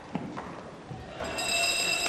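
Feet shuffling and a few knocks on a hard floor from a scuffle, then a bell starts ringing steadily about a second in.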